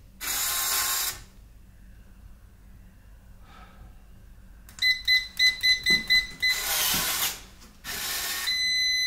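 Electronic keypad deadbolt being worked: a short whir of its bolt motor in the first second, then about five seconds in a quick run of about seven key-press beeps followed by the motor whirring again. Near the end comes a longer beep with another whir as the lock throws.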